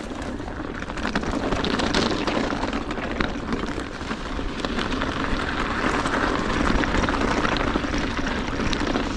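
Steady wind rushing over an action camera's microphone, with a patter of small clicks throughout.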